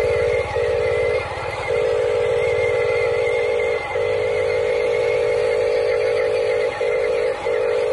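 Huina RC dump truck's electric drive motor and gearbox whining at a steady pitch as the loaded truck drives, breaking off briefly several times, the longest gap about a second and a half in.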